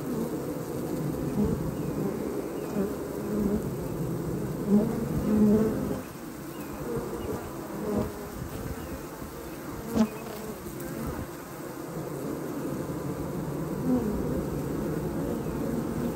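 Honey bees buzzing in a crowd at a hive entrance: a steady, dense hum of many wingbeats that swells now and then as bees fly close past. A single short click about ten seconds in.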